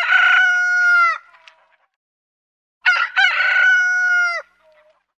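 Rooster crowing twice. The first crow is already under way and ends its long held note just over a second in; a second full crow starts about three seconds in, a few short opening notes then a long held note that drops off at the end.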